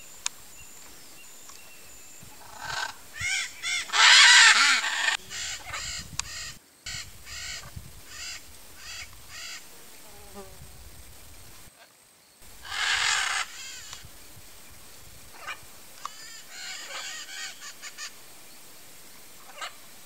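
Blue-and-yellow macaw squawking: two long, loud squawks, one about four seconds in and one about twelve seconds in, between runs of shorter, softer calls.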